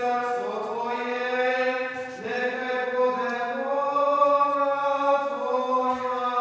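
Eastern Orthodox liturgical chanting: voices sing long sustained notes that shift pitch every second or two.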